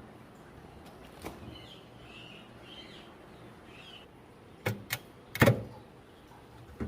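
A single knock, then two sharp clicks and a louder thump close together, with faint high chirps between.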